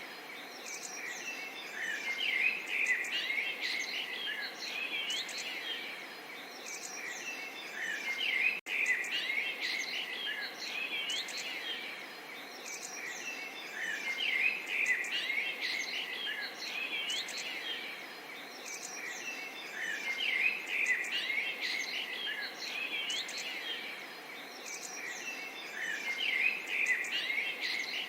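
Many birds chirping and singing together, in swells every five or six seconds, over a steady soft hiss. The sound cuts out for an instant about eight and a half seconds in.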